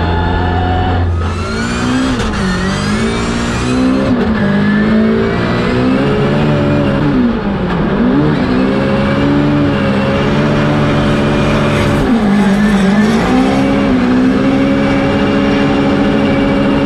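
Nissan Silvia S15 drift car's engine revving hard through a drift run, its pitch rising and falling as the throttle is worked, with three deep drops about two and a half, eight and twelve and a half seconds in.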